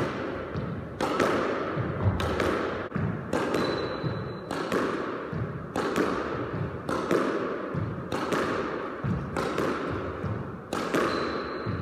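Squash racket striking the ball, with the ball hitting the court's front wall and floor in a steady solo rally. The sharp impacts come about once a second and each rings on in the enclosed court.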